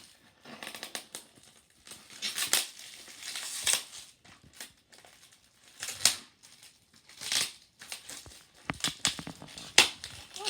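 Paper and plastic wrapping on a pack of fireworks being crinkled and torn open by hand, in irregular rustles and short tears.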